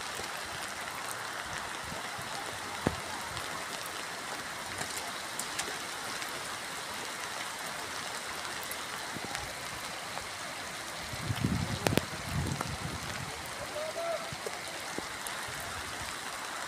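Heavy monsoon rain falling steadily. About eleven to thirteen seconds in, a short low rumble and a sharp knock stand out above it.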